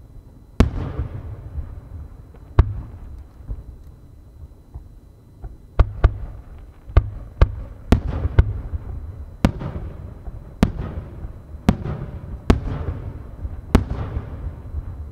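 Aerial firework shells bursting: about a dozen sharp booms in irregular succession, each trailing off in a rolling echo, coming thick and fast in the second half.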